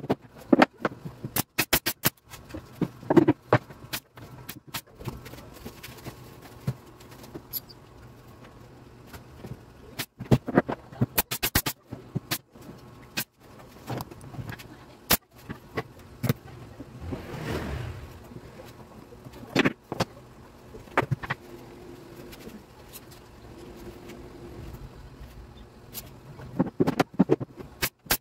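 Pneumatic brad nailer shooting nails into plywood cabinet panels: sharp shots at irregular intervals, mixed with knocks of the boards being handled.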